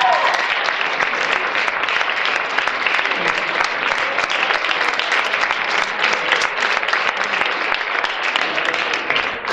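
Audience applauding, a dense steady clapping that holds through the whole stretch, with the last held note of the music dying away right at the start.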